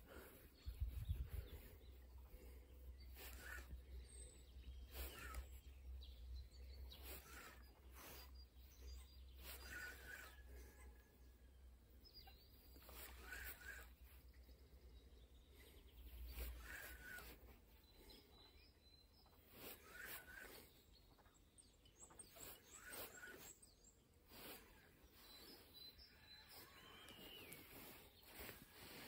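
Near silence, with faint short bird chirps repeating every few seconds.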